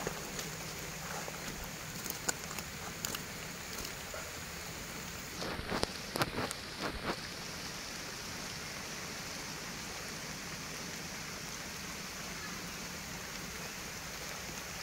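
Steady hiss of falling rain, with a few short knocks and rustles about six seconds in.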